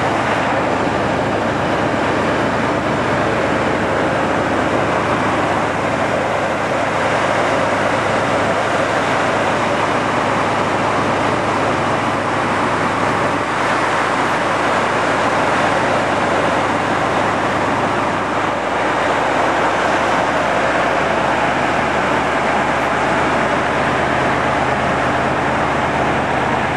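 T-72 tank's V12 diesel engine running steadily, heard close up over the engine deck grilles.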